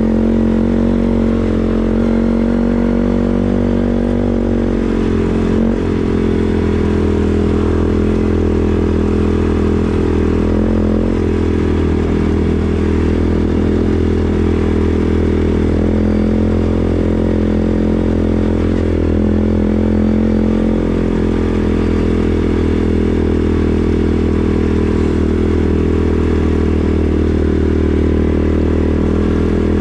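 CFMoto CForce 450S ATV's single-cylinder engine running at a fairly steady speed while riding, with small throttle changes now and then.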